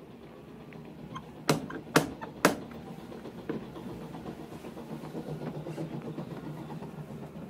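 Three sharp knocks on a door, half a second apart, over a steady background hubbub that fades in: a radio-drama sound effect of a visitor knocking at a house.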